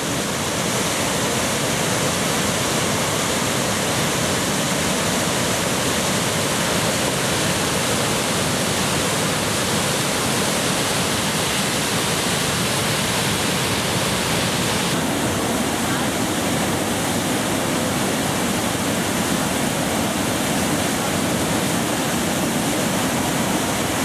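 Loud, steady rush of heavy whitewater from the Athabasca River's waterfall and rapids. The tone of the rushing shifts slightly about two-thirds of the way through.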